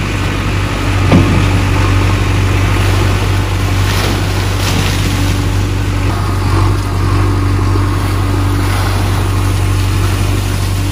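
JCB 3DX backhoe loader's four-cylinder diesel engine running steadily while the backhoe works, with a couple of brief knocks and water splashing as the bucket pours near the end.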